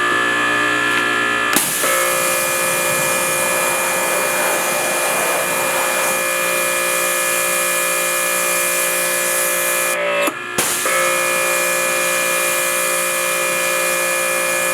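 Pressure washer running steadily: a pump whine over the hiss of the spray, cutting out briefly twice.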